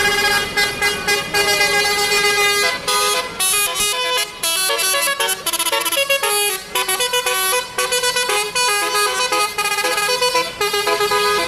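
Basuri multi-tone "telolet" bus horn playing a tune: held notes for the first few seconds, then a quick run of changing notes.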